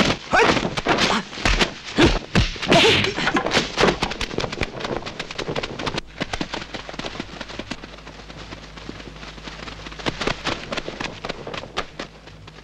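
Martial-arts film fight soundtrack: a fast run of clacks and knocks with a few short shouts, loudest in the first three seconds, thinning to lighter, quieter clicks in the second half.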